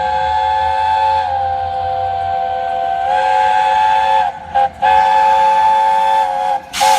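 Multi-note train horn sounding a chord in a long blast, broken about four seconds in into two short toots, then another long blast and a brief last toot near the end. A rush of hiss starts right at the end.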